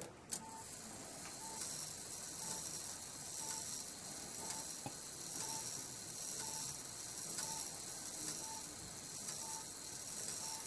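The strike train of a Korean-made Montgomery Ward 30-day schoolhouse clock movement running through eleven strikes. The gears clatter and whir, pulsing about once a second with a small click at each strike. Striking the correct count shows the rack-and-snail is set right.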